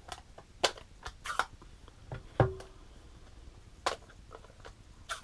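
Stamping supplies being handled on a craft desk: a few sharp clicks and taps, the loudest a knock with a short ring about two and a half seconds in.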